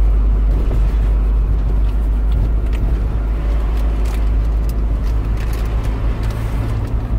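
Steady low rumble of a car driving, engine and road noise heard from inside the cabin, with a few faint ticks in the middle.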